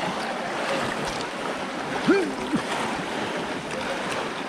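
Steady wash of churned river water with wind on the microphone, and a short voice calling out about two seconds in.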